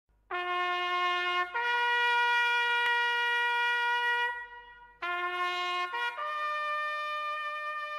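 Solo trumpet of an Alpini brass band playing slow held notes: a short low note steps up to a long high note that fades away about four seconds in, then after a brief break the same low note returns and climbs to a higher sustained note.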